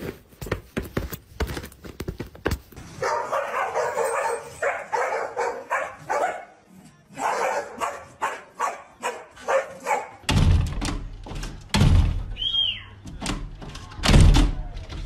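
Dogs barking back and forth, then about ten seconds in a dog thumping heavily against a glass sliding door, several times.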